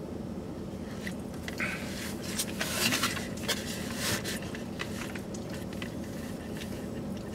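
People eating rotisserie chicken and rice: chewing, with scattered small clicks and rustles as the food is handled, a little louder two to four seconds in, over a steady low hum inside a car cabin.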